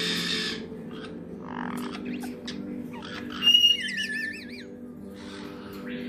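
Caique parrots calling: a brief harsh squawk at the start, then, a little past halfway, a loud warbling whistle that swings up and down several times, and a short call near the end, with a few light clicks in between.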